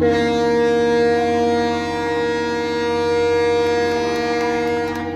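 A ship's horn sounding one steady blast about five seconds long, starting abruptly and holding one pitch.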